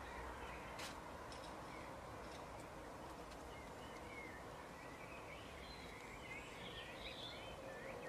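European goldfinches giving short, thin twittering calls, more of them in the second half and busiest about seven seconds in, over a steady background hiss.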